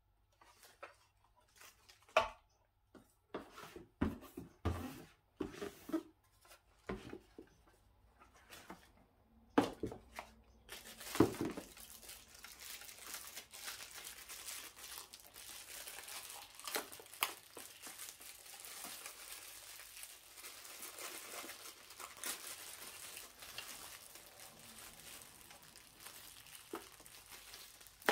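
Packaging of a computer speaker set being handled and unwrapped: scattered knocks and taps for about the first ten seconds, then steady crinkling of wrapping.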